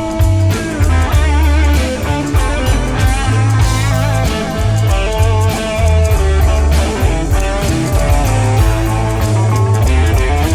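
Instrumental band music: electric guitar playing a wavering, bending lead line over a strong bass line and drums.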